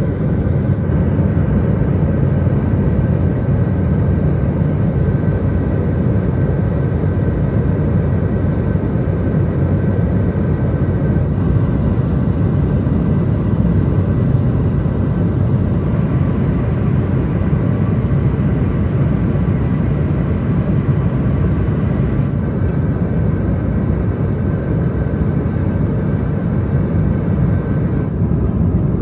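Embraer 190 cabin noise in cruise, heard from a window seat: a steady, loud rumble of airflow and engines, with faint steady tones above it.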